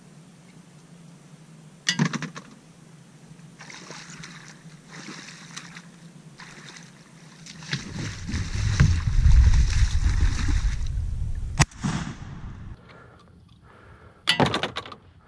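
Shallow water splashing and sloshing around a wader's legs and a small layout boat's hull as he pushes and climbs into the boat, loudest for a few seconds past the middle. A few sharp knocks against the boat are mixed in.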